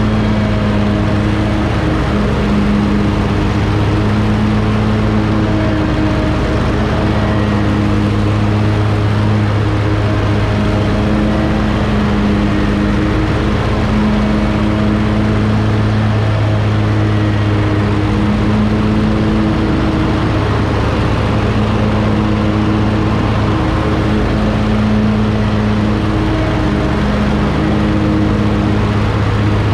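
A 2020 Hustler FasTrak 54-inch zero-turn mower runs at steady mowing speed with its blades engaged, cutting grass. The engine note holds even, with only slight dips.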